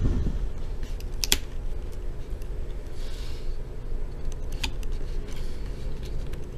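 A handful of sharp plastic clicks and ticks, the loudest just over a second in, as fingers and a thin flathead screwdriver work at a laptop's plastic screen bezel to peel off a small adhesive screw cover, over a low handling rumble.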